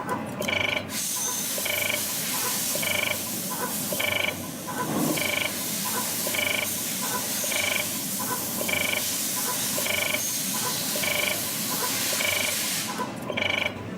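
CNC wave-spring coiling machine cycling at about one part a second, each cycle a short, rasping mechanical burst, over a steady hiss that stops near the end.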